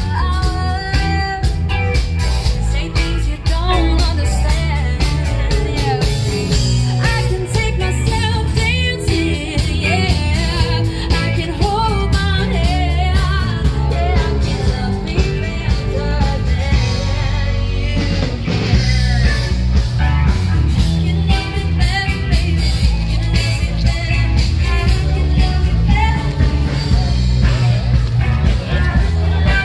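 Loud rock music with a singer, heavy bass and a steady drum beat.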